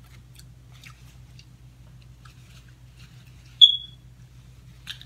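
A nose blown into a tissue, with a brief, loud, high whistling squeak about three and a half seconds in and a shorter blow near the end. Faint chewing clicks in between.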